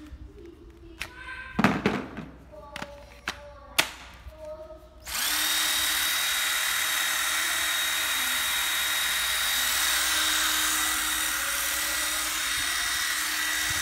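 Makita 12V cordless impact driver handled in the hand, with scattered clicks and two knocks. About five seconds in, its motor starts and runs with no load at a steady speed, a steady whine that holds to the end.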